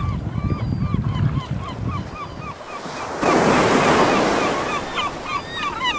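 Sea water washing against a rocky shore, with one louder surge of surf about three seconds in that lasts a couple of seconds. A bird calls throughout in quick repeated short notes, about three or four a second.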